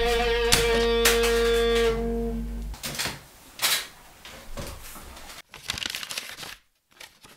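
Electric guitar through an amplifier, a held note ringing out over a steady amp hum that cuts off suddenly after about two and a half seconds. Then scattered clicks, knocks and paper-like crackling from handling, dying away near the end.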